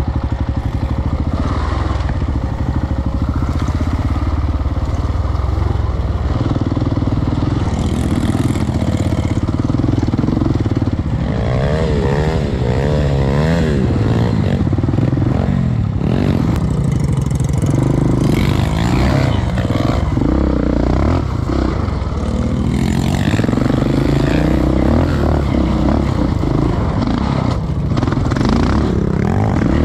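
Sport quad's engine running under the rider, revving up and down as it is ridden over rough field ground.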